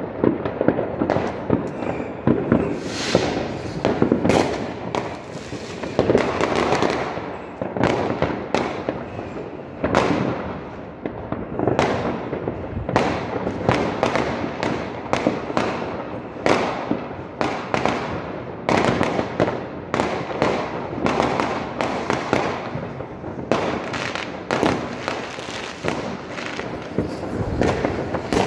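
Many fireworks going off at once: a continuous barrage of sharp bangs, several a second, with no let-up.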